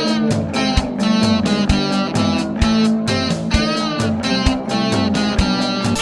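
Band music: guitar with drums keeping a steady beat, no singing.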